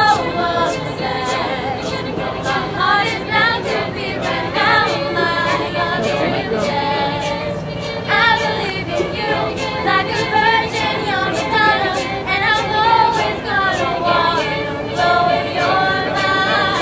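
A mixed a cappella choir of young women and men singing a song, over a steady beat of sharp clicks about twice a second.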